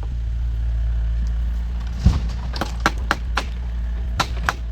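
Sharp, quick, irregular blows of a hand tool striking wood, starting about two seconds in with a heavier thump, over a steady low hum.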